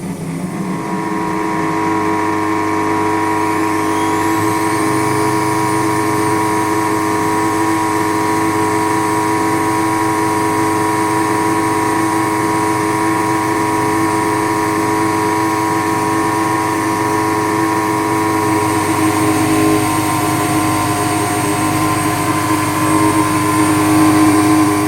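Indesit WS84TX washing machine running through its rinse or spin with a loud, steady hum and whine of several held tones: the extraneous noise the machine makes in rinse and spin.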